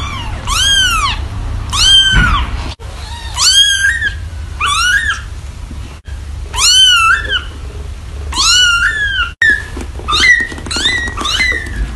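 Young kittens mewing repeatedly, about a dozen high-pitched mews that each rise and fall. The mews turn shorter and come faster near the end.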